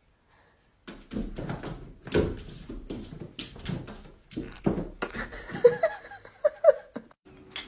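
A cat's paws knocking and scrabbling against a glass patio door as it swipes at the glass, a burst of thumps starting about a second in and going on in uneven bursts. A few short chirping calls come near the end.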